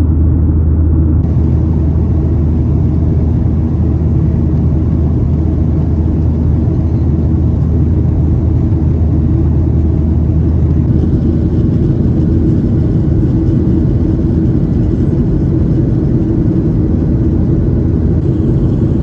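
Boeing 737-800 cabin noise: a steady, loud, low rumble of the CFM56 engines and airflow heard from inside the passenger cabin. Its character shifts about a second in and again about eleven seconds in.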